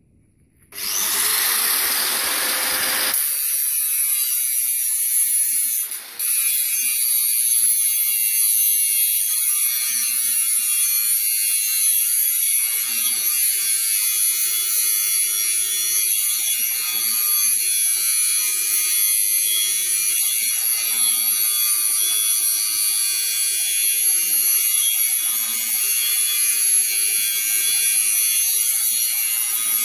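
One-handed angle grinder starting up about a second in, then grinding the end of a metal pipe: a steady, loud high-pitched whine and hiss of the abrasive disc on steel, briefly dipping about six seconds in. The disc is bevelling the pipe end as weld-seam preparation for TIG welding.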